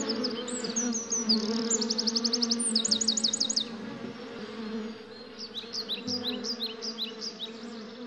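Honeybees buzzing around their hive, a steady hum. Rapid high bird chirps run over it in a fast series in the first half, then come scattered near the end.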